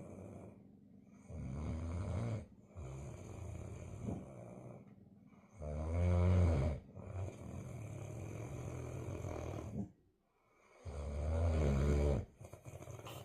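A sleeping pet snoring: three loud, low, rasping snores a few seconds apart, with quieter snoring breaths between them.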